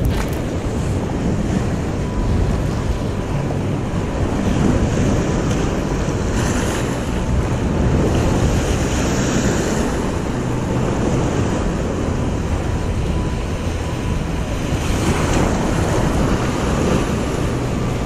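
Sea surf washing and breaking, with wind buffeting the microphone. The wash of the waves swells louder twice, about six seconds in and again near the end.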